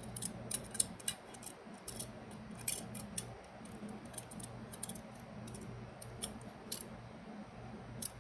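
Irregular light metallic clicks and clinks of a hand tubing bender being worked and repositioned on a brake line, over a low steady hum.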